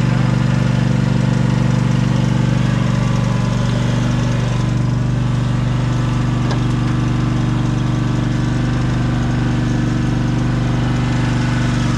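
An engine running steadily at an even speed, a low constant hum with no change in pitch.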